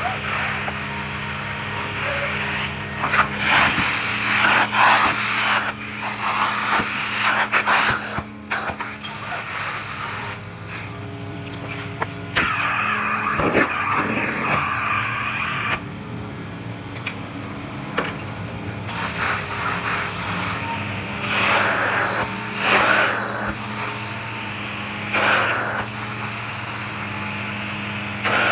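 Carpet-cleaning extraction tool on a vacuum hose, drawn across a rug: the cleaning machine hums steadily while the suction rushes loudly in several long passes as the head is worked over the carpet.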